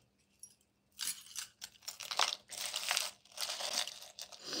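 Repeated bursts of crinkling and rustling from something being handled close to the microphone, starting about a second in.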